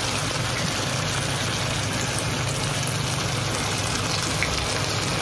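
Chicken pieces sizzling in their own juices in a non-stick wok: a steady hiss with a few faint ticks and pops.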